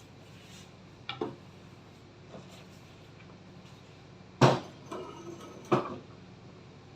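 A few sharp knocks and clinks of hard objects being handled, the loudest about four and a half seconds in, over a faint steady hum.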